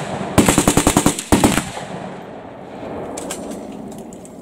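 Automatic gunfire. About half a second in, a rapid full-auto burst runs for nearly a second, with one heavy shot right after it. After that the shooting falls away to a few scattered shots.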